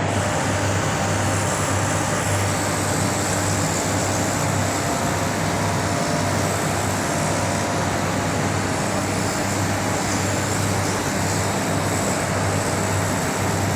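Heat pump unit running steadily: a constant rush of fan air over a low, even compressor hum.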